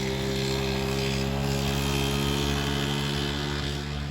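A small engine or motor running steadily at an even pitch, dying away near the end.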